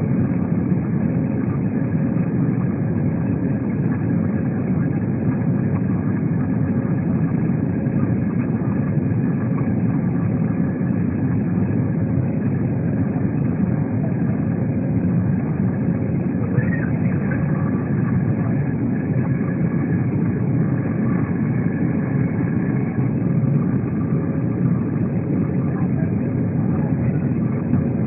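Steady cabin noise of an Airbus A320 in flight: a constant low rumble of engines and airflow, with a faint steady hum above it.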